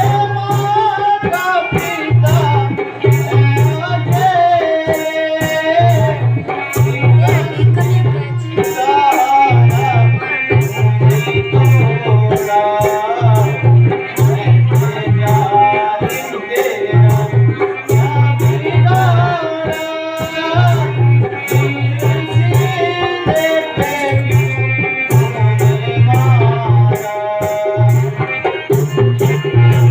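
Music with a gliding melody line over a steady low drum beat and a fast, regular high ticking percussion.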